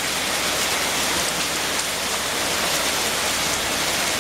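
Heavy rain pouring down steadily, a dense even hiss of a hard downpour.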